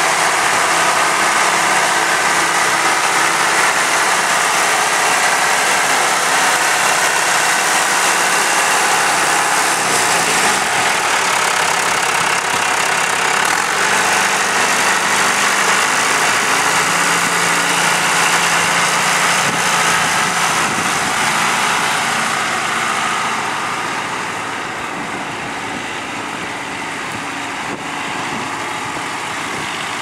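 John Deere 2140 tractor's diesel engine running steadily at close range, growing a little quieter in the last few seconds as the tractor moves off with its plough.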